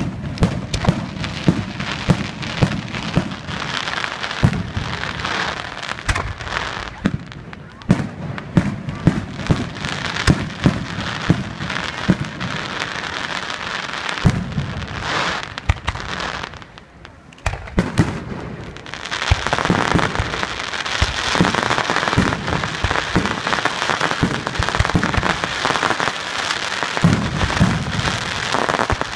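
Aerial fireworks display: shells bursting in a rapid string of sharp bangs. A short lull comes a little past halfway, then a dense crackling from many small crackling stars fills the rest, with bangs still mixed in.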